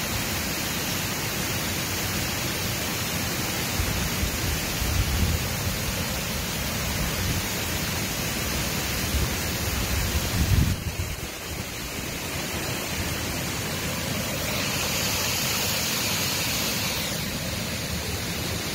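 Water spilling over a low concrete weir in a channel: a steady rushing. Low rumbles swell in twice, the loudest a little past the middle.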